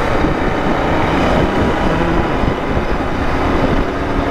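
Steady riding noise of a Royal Enfield Continental GT650 cruising at highway speed, about 118 km/h: wind rush over the microphone with the 648 cc parallel-twin engine running underneath.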